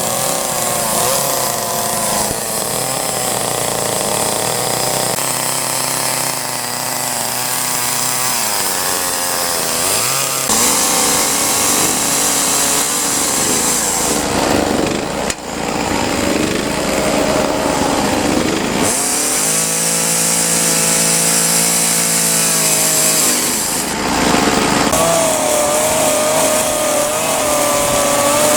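Chainsaw running and cutting into a tree trunk being carved into a sculpture. Its engine pitch shifts up and down, with a brief drop about halfway through.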